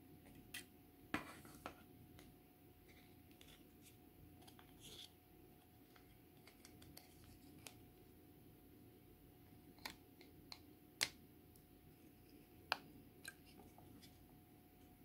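Scattered sharp clicks and snips of small plastic model-kit parts being handled and worked, over a faint steady hum. The loudest clicks come a little after one second in and again around eleven seconds in.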